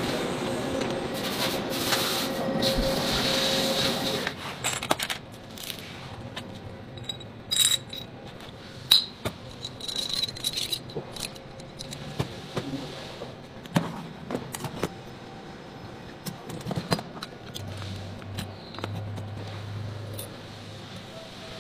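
A CNC lathe turning a steel bearing ring runs steadily with a held tone for about the first four seconds. Then metal bearing parts are handled and fitted together by hand, giving scattered clinks, taps and light scrapes of steel on steel.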